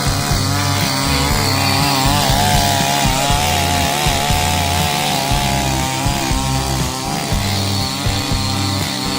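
A small motor-driven garden tool running steadily, heard with background music.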